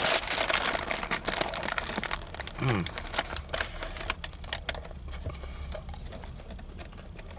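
Paper sandwich wrapper crinkling and rustling as the sandwich is handled. The crinkling is densest in the first couple of seconds and thins to faint crackles.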